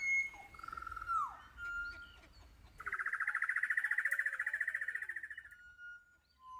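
Several birds calling: clear whistled notes and a falling slurred whistle, then a rapid trill lasting about three seconds from about three seconds in.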